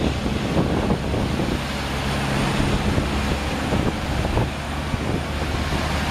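Semi-truck's diesel engine running as the tractor-trailer ploughs through deep floodwater, with water surging and splashing around its wheels. Steady rushing of floodwater throughout.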